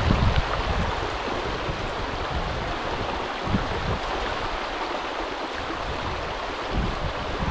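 River water rushing steadily, with a few low bumps at the start, about halfway and near the end.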